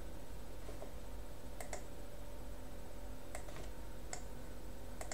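A handful of faint computer mouse clicks, two of them close together like a double-click, over a steady low hum.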